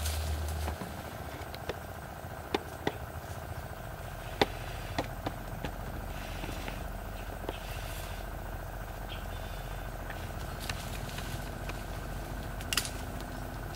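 A steady hum at a few fixed pitches, with scattered sharp snaps and cracks as a burning torch and branches are handled in dense foliage. The loudest snap comes about four and a half seconds in, and another near the end.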